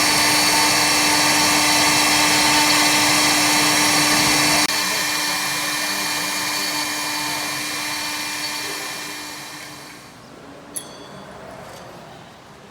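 Electric machinery of a CNC wood turning lathe running with a steady whine, switched off about four and a half seconds in and then dying away over several seconds; a single click follows near the end.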